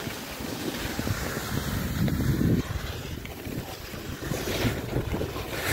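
Wind rushing over the microphone of a phone carried by a skier going downhill, over the steady hiss of skis sliding on snow.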